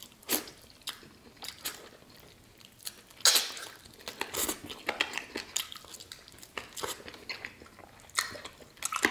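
A person biting and chewing roasted chicken held in the hand, close to the microphone: irregular short, sharp mouth sounds, the loudest about three seconds in.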